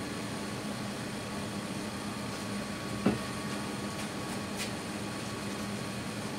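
Steady background hum in a workshop, with one light knock about three seconds in and a short hiss a little later.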